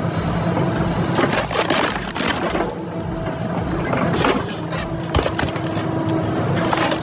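A heavy machine's engine running steadily while wood is crushed and split, with repeated sharp cracks and splintering scattered throughout.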